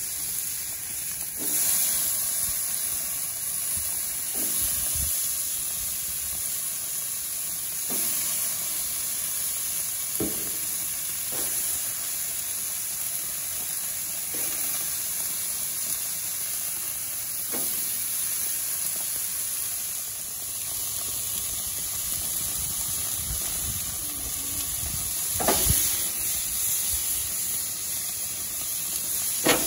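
Raw steaks and chicken sizzling on the hot grates of a Char-Broil gas grill: a steady hiss. Now and then a short knock sounds as another piece is laid on the grate.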